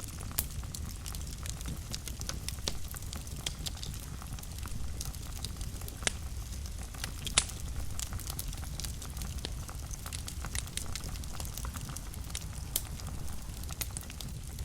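Wood fire burning in a fireplace: a steady low rumble of flames with many irregular sharp crackles and pops, two louder pops about six and seven and a half seconds in.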